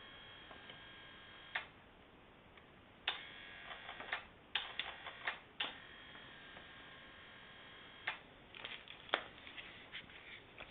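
Electric adjustable bed base from Beter Bed: a faint steady motor hum broken by sharp clicks and knocks, one early, a dense cluster a few seconds in and another near the end. The knocks are the sign of mechanism parts catching and rubbing past each other, a fault that two repair visits have not fixed.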